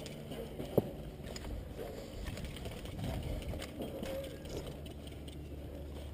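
Faint movement and gear-handling noise with distant voices, and one sharp click about a second in.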